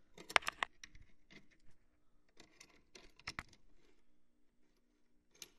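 Clicks and light metallic rattles of a Tecomec Jolly Evo chain grinder and its saw chain being handled and adjusted. They come in clusters about half a second in and around three seconds in, with one sharp click near the end. A faint steady hum runs underneath.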